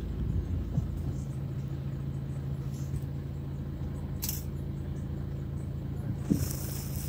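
Safari vehicle's engine idling with a steady low hum, and a short knock about six seconds in.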